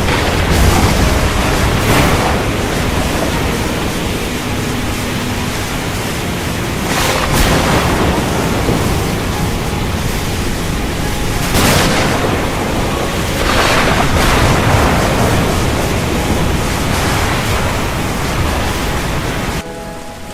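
Heavy rain falling, a dense steady hiss over a deep low rumble that swells every few seconds. Near the end it cuts suddenly to quieter rain with a few soft sustained tones.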